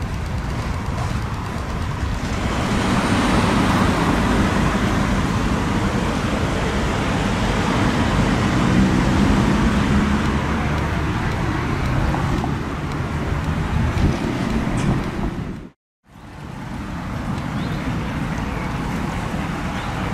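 Outdoor street ambience of road traffic: a steady hum of cars, louder in the middle as a vehicle goes by. Near the end the sound cuts out completely for a moment, then returns as a quieter, steady outdoor background.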